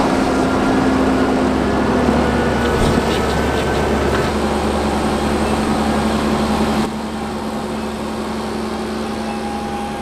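Fendt 700-series tractor engine running steadily as it pulls a loaded silage trailer across the clamp. The sound drops a little in level about seven seconds in.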